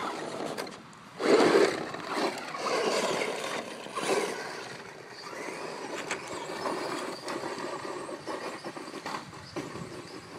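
ECX Circuit radio-controlled truck driving over dirt and gravel: the electric motor whining up and down with the throttle, with tyre and gravel noise and a loud burst a little over a second in.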